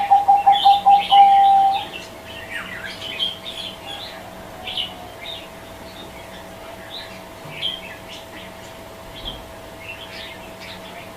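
Zebra dove (perkutut) cooing: a quick run of rapid, evenly pulsed notes in the first couple of seconds, with small birds chirping on and off throughout.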